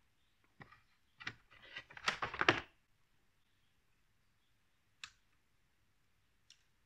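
Hands handling and arranging battery cables: a cluster of short clicks and rustles in the first three seconds, then a single sharp click about five seconds in.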